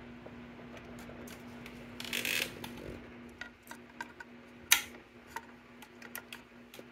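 Small metal clicks and taps from the throttle linkage being hooked up by hand on a Vespa P200E's carburettor, with a brief scraping rustle about two seconds in and a sharper click near the middle. A steady low hum runs underneath.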